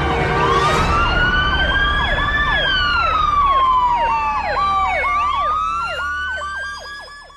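Emergency vehicle sirens sounding together: a slow wail that rises, falls and rises again, overlaid by a fast repeating yelp, over a steady low rumble. The sirens fade out near the end.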